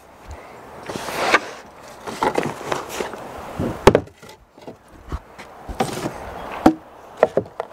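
Wooden companionway washboards on a small sailboat being lifted out of their slides, giving a series of separate wooden knocks and scrapes.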